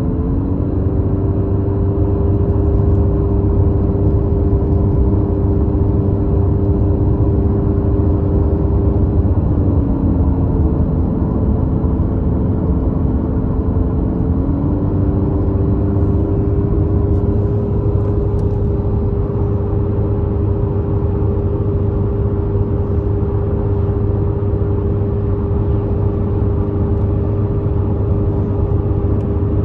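Car driving along a highway, heard from inside the cabin: a steady drone of engine and tyre noise. A humming tone in it dips in pitch about ten seconds in and comes back up a few seconds later.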